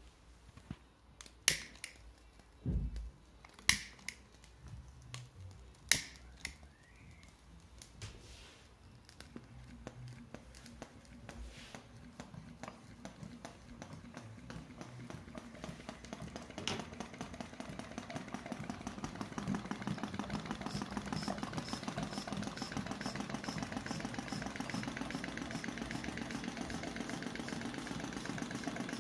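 A few sharp knocks, then a small model engine running with a rapid, even clatter that grows louder over several seconds and holds steady near the end.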